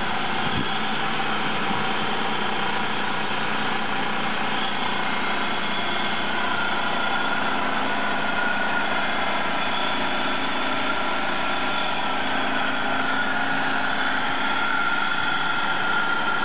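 Buick 3800 V6 idling steadily, heard close over the engine, running the way it is supposed to.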